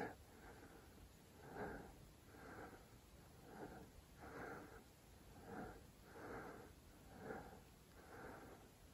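A person breathing hard and fast, close to the microphone: soft, regular breaths about one a second, the panting of someone winded from hiking up a steep slope.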